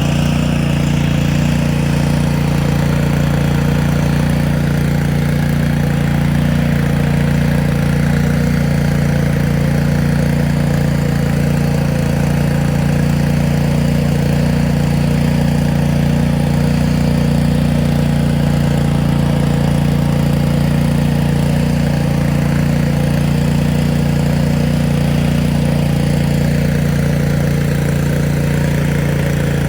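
Small gasoline inverter generator (EDOG) running at a steady engine speed with an even hum.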